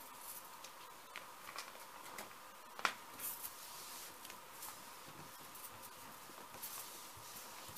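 Hands rubbing and pressing a sheet of copy paper down onto a gel printing plate to pull a print: faint paper rustling and swishing, with one sharp click about three seconds in.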